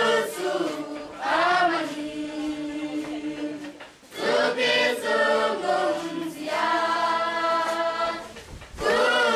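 A group of people singing together in repeated phrases, each starting strong and trailing off, a few seconds apart.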